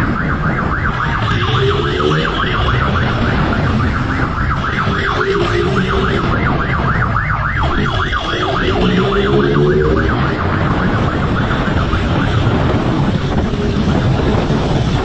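Motorcycle engines running hard and revving up in pitch several times as they accelerate, with a fast rattling engine pulse and wind rush on the microphone.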